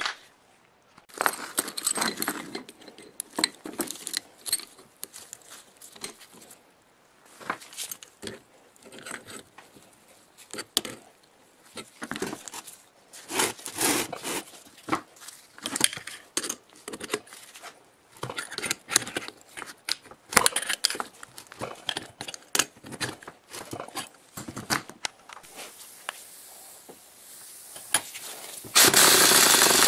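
Metal tools clicking, clinking and scraping as a jaw gear puller is fitted and adjusted over the V-belt pulley on an old electric motor's shaft. About a second before the end a power impact wrench starts up suddenly and runs loud and steady on the puller's screw.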